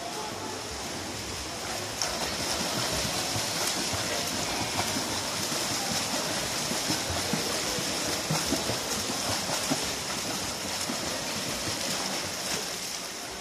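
A swimmer sprinting in a pool, arm strokes and kicks splashing over a steady rushing hiss of water. The splashing gets louder about two seconds in, as the swimmer surfaces from the underwater glide.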